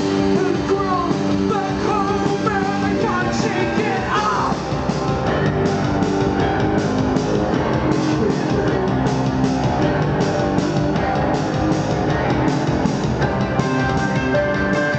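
Live post-punk band playing: a sung vocal line over guitar, bass and drums for about the first four seconds, then the band carries on without vocals over a steady drum beat.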